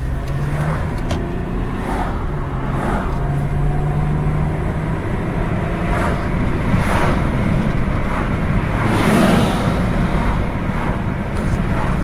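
2001 Toyota Camry's V6 engine and tyres on the road, heard from inside the car while it is driven, with a steady low engine note under road noise. The car is driving smoothly after engine-mount and drive-shaft repairs.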